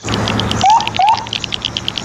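Water splashing and spattering as a muddy toy car is washed, starting suddenly. Insects chirp quickly and steadily behind it, and two short rising chirps come about half a second and a second in.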